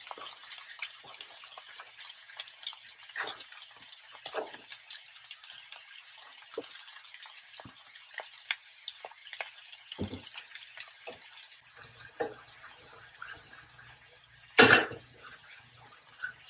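Pepper strips, onion and shrimp sizzling in hot oil in a frying pan: a steady hiss with crackles. About two-thirds of the way through it drops suddenly quieter, and a brief louder clatter comes near the end.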